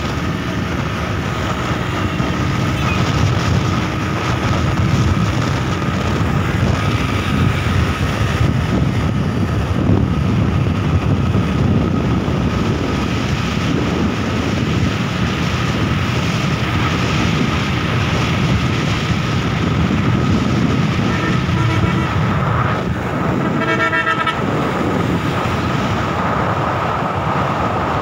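Steady road and engine noise from a moving vehicle, mixed with wind. A vehicle horn sounds twice near the end; the second time it is a rapid pulsing beep.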